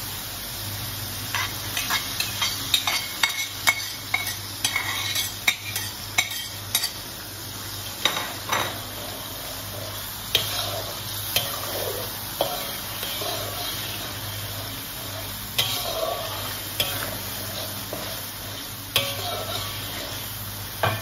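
Metal slotted spatula stirring and scraping in a metal wok, clicking against the pan, while the sauce sizzles. The clicks come thick and fast for the first several seconds, then more scattered.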